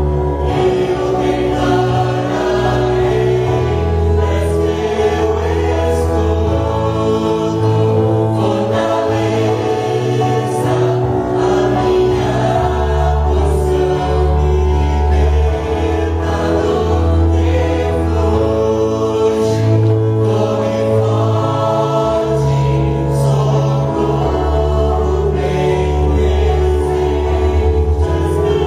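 Gospel worship song sung by a group of voices, a choir or congregation, with instrumental accompaniment. Held bass notes change every few seconds under the singing.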